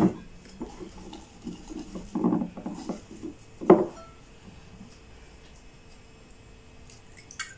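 Wooden spoon stirring thick bhajia (chilli-bite) batter in a glass bowl, scraping and knocking against the glass, with one sharp louder knock about halfway through. The stirring stops soon after that knock.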